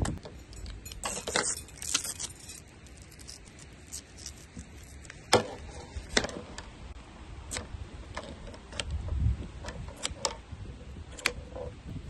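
Small metal items clinking and jangling as they are handled: a quick cluster of jingles near the start, then scattered single sharp clicks.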